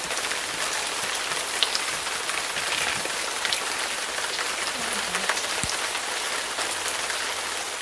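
A steady, loud hiss like rain or running water, even and unbroken, with a few faint ticks in it.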